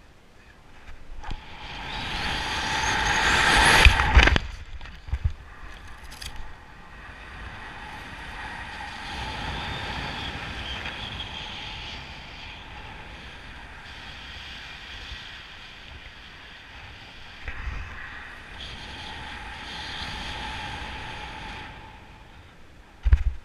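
Wind rushing over a BASE jumper's camera in freefall, building for about three seconds and then dropping off sharply as the parachute opens. A steadier, wavering wind hiss follows under canopy, with a few thuds near the end as the jumper touches down on grass.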